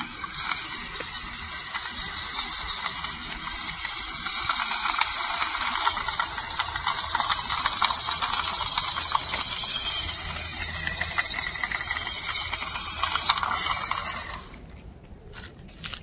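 Small 1/16-scale WPL C24-1 RC crawler truck driving over dirt, roots and dry leaves. Its electric motor and gearbox run with a dense crackle of leaves and twigs under the tyres, and the sound stops suddenly about fourteen seconds in.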